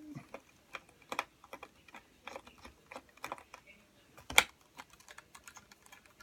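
Irregular light clicks and taps of a small screwdriver and plastic parts as a screw is worked into a laptop screen's mounting, with one sharper click about four seconds in.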